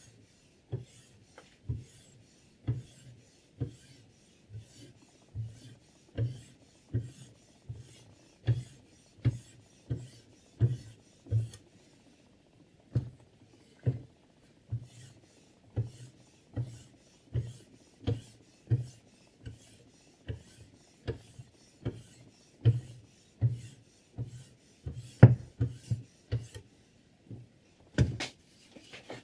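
A sharpening stone on a KLODCHIK guided-rod sharpener is stroked repeatedly along the edge of a XINZUO chef knife's 10Cr15CoMoV steel blade, a rasping rub about every three-quarters of a second. The strokes pause briefly about twelve seconds in, then carry on.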